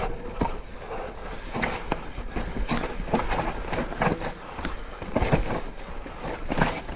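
Mountain bike rattling down a steep, rocky trail: irregular sharp knocks and clatter as the wheels and frame hit rocks and roots, over a steady rushing noise.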